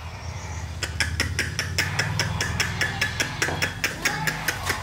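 A fast, uneven run of sharp clicks, about five a second, starting about a second in, over a steady low hum.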